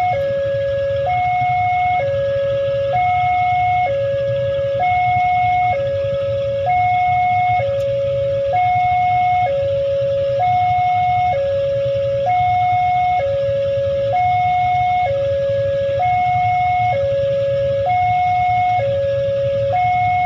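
Railway level-crossing warning siren sounding a steady two-tone hi-lo alarm, switching between a higher and a lower note about once a second, the signal that a train is approaching and the crossing is closed.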